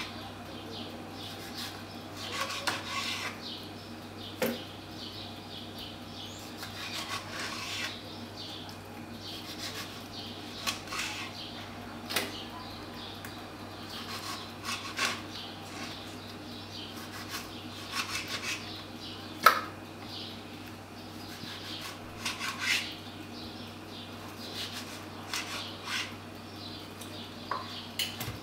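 Kitchen clatter: scattered clinks and knocks of dishes and utensils being handled, every second or two, over a steady low hum.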